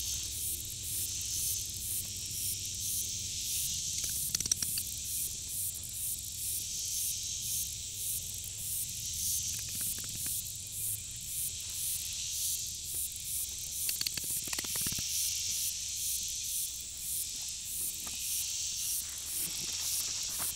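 Steady high-pitched insect chorus in a summer field, pulsing a few times a second, with a few brief rustles and clicks.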